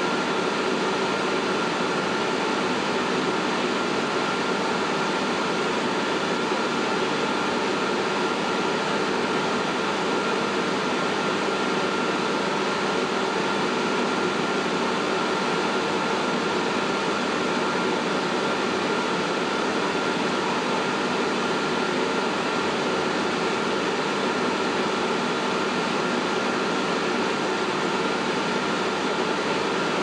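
Anton Paar Multiwave 3000 digestion microwave running its start-up self-check, its exhaust fan giving a steady whir with a faint steady high tone.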